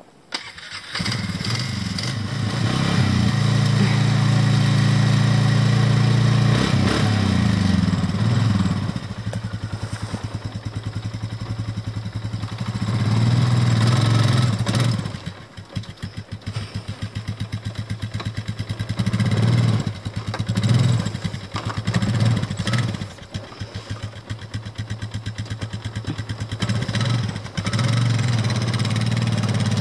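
ATV engine starting under a second in and then running, the revs rising and falling repeatedly with the throttle.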